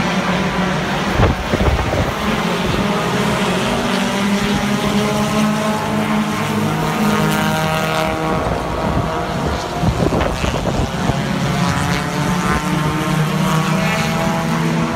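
Race car engines running at a speedway, their pitch drifting up and down as cars circle. There are a couple of low thumps, about a second in and again near the middle.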